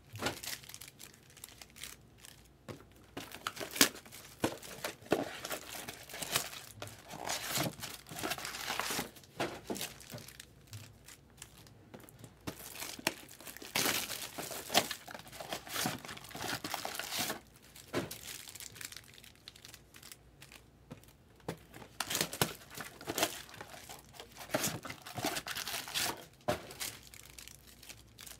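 Foil Topps Chrome trading-card pack wrappers being torn open and crinkled by hand, in irregular bursts.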